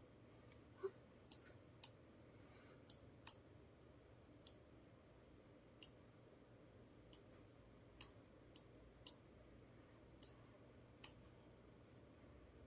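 Computer mouse clicking: about a dozen faint single clicks, spaced irregularly.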